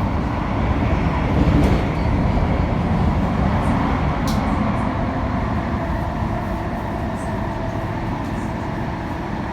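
Elizabeth line Class 345 train running at speed through the tunnel, heard from inside the carriage: a steady rumble with a faint hum and a couple of light clicks about one and a half and four seconds in.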